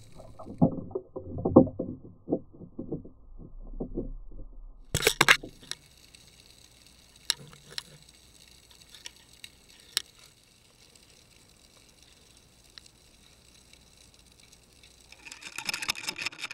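The underwater fishing camera's own sound through its housing. For the first few seconds there are muffled knocks and thuds, then a sharp click about five seconds in. After that comes a faint steady high whine with a few scattered clicks, and a dense rattle of clicks near the end.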